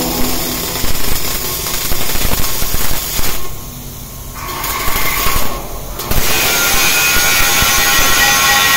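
Flux-cored arc welding: the arc crackles and sizzles steadily. It breaks off for about a second midway and again briefly a little later, as the arc is stopped and struck again.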